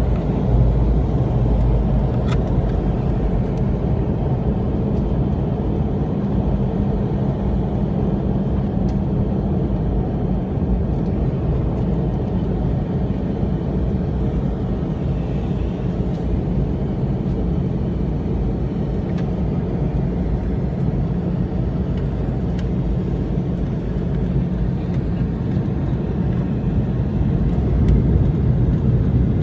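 Steady low roar of a jet airliner's engines and airflow heard inside the cabin during descent, with a low hum running through it.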